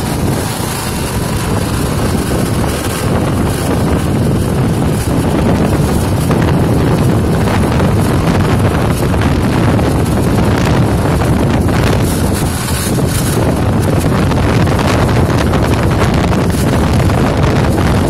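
Outboard motor on a small boat running at speed, mixed with heavy wind buffeting the microphone and the rush of the wake. The overall level builds over the first few seconds, then holds steady.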